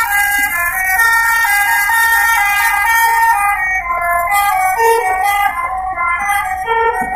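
Bus telolet horn: a multi-tone air horn playing a quick melody of stepped notes, several pitches sounding together.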